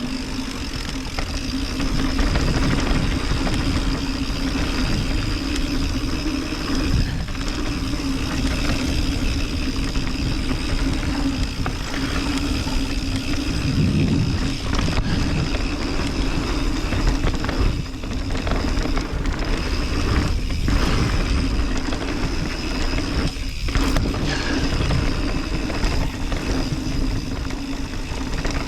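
Mountain bike riding downhill on a dirt trail: tyres rolling over the ground with a steady rumble and a few knocks and rattles.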